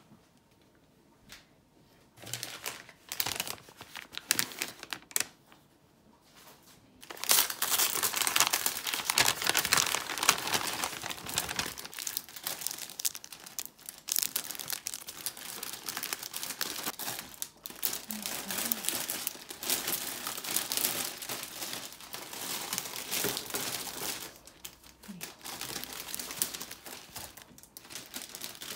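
Clear plastic packaging crinkling and rustling as it is handled and opened. The first seconds are nearly quiet with a few short rustles; from about seven seconds in the crinkling is continuous and uneven.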